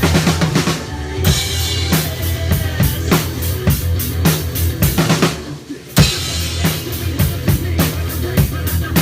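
Rock drum kit played to a steady beat of kick and snare over a bass line. About five seconds in it drops out briefly, then comes back in with a loud hit.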